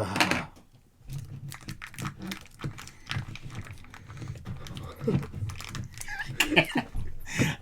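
Slime-covered fingers fumbling with a toy's plastic packaging: a run of small, irregular clicks and crinkles.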